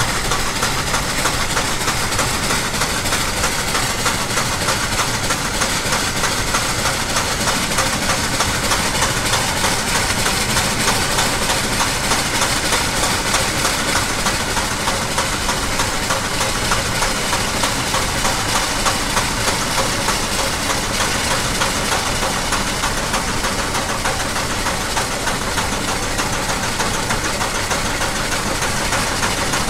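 DJI Phantom quadcopter's motors and propellers buzzing steadily in flight, picked up by the camera it carries.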